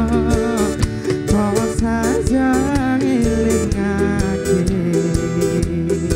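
A live band playing a song: a male lead singer over electric guitars, bass guitar and drum kit. The vocal line carries the first half, then eases off about two-thirds of the way through, leaving the guitars and drums.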